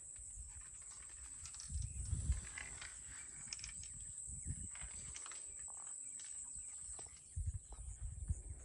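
Insects chirring in a steady high-pitched drone, with irregular low thumps about two seconds in and again near the end.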